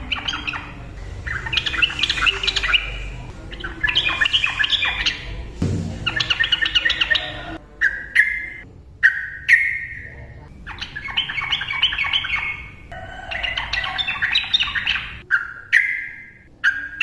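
Sooty-headed bulbul (trucukan) singing hard in its agitated challenging mode, rapid chattering phrases of a second or two repeated one after another. In the second half short sharp calls come between the phrases.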